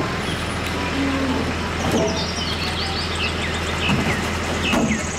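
Rear-loader garbage truck's engine running at idle, a steady low hum with street noise, while birds chirp from about two seconds in.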